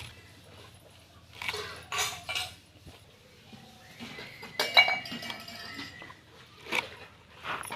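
Metal kitchen utensils clinking and knocking a few times, the loudest clink about four and a half seconds in with a short ring.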